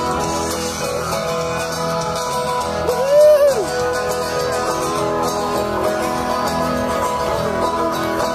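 Country band music led by guitar, with a brief loud sliding note about three seconds in.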